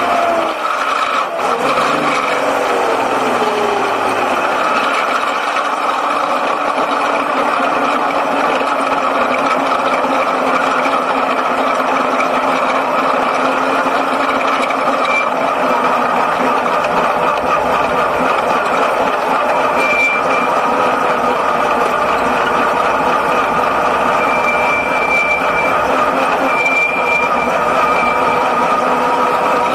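Six-cylinder speedway sedan's engine running, heard from inside the cockpit as a steady loud drone. The revs fall over the first few seconds, then hold steady.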